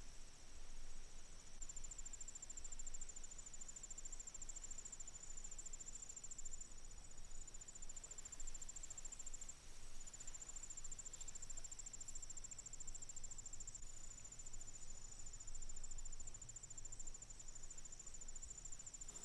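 Faint, high-pitched insect-like trill, a fast pulsing chirr over a steady whine, with a few short breaks.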